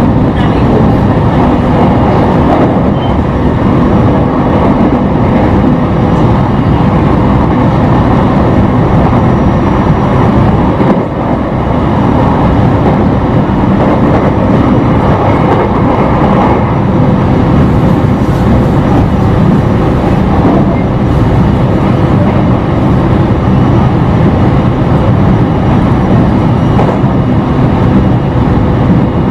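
Running sound inside a JR East E721 series electric train at steady speed: wheel and rail noise with a steady hum from its Mitsubishi IGBT VVVF inverter traction motors.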